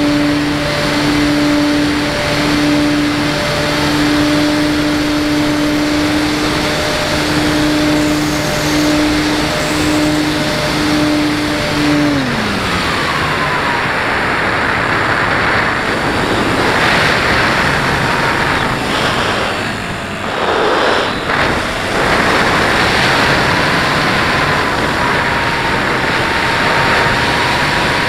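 Small electric motor of an FPV model aircraft whining at a steady pitch, then winding down about twelve seconds in. After that a loud steady hiss remains, with a fainter whine that rises and falls.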